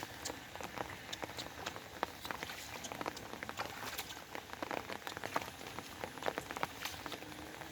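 Rain falling, with individual drops heard as many irregular sharp ticks over a steady hiss.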